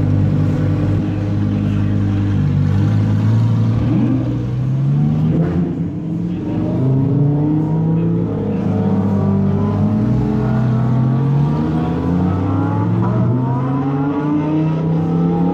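Lamborghini Huracán's V10 engine accelerating away down the pit lane. It idles steadily at first, then its note rises and drops back again and again as it shifts up through the gears.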